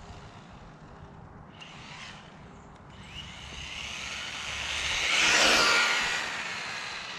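MJX Hyper Go four-wheel-drive electric RC truck making a high-speed pass: the whine of its motor and drivetrain and the rush of its tyres swell up, are loudest about five and a half seconds in, then fade as it runs off.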